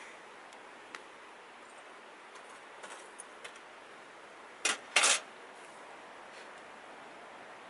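Small camp gear being handled on a table: a few light clicks, then two brief clattering rattles close together a little past the middle, over a steady faint hiss.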